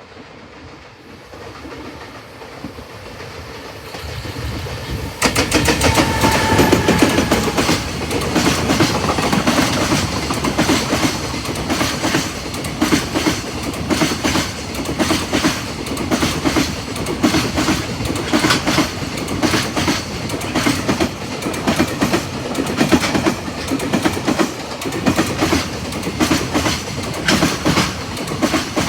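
Electric-hauled container freight train passing at speed. It rumbles in over the first few seconds and gets loud as the EF210 electric locomotive goes by about five seconds in, with a brief tone that drops in pitch. After that the container wagons' wheels clatter over the rail joints in a steady, even rhythm.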